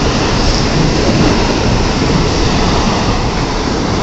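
N700A-series Shinkansen train (an original N700 converted to N700A spec) pulling out and passing close by, a loud steady rush of wheel, motor and air noise.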